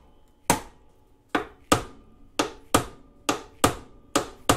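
Ball-peen hammer tapping a rusted-in bolt on a 2002 Honda XR100R's rear subframe: about nine sharp metal strikes, often in quick pairs, with a short ring after each. The blows are meant to shock the seized bolt loose before it is unscrewed.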